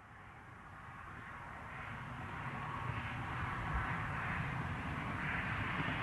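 Federal Signal EOWS 612 electronic siren sounding its wail, building steadily in loudness.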